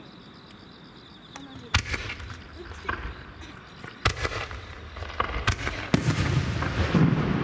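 Aerial fireworks shells bursting: a sharp bang about two seconds in, another about four seconds in, then a quickening run of bangs and crackle with a low rumble near the end.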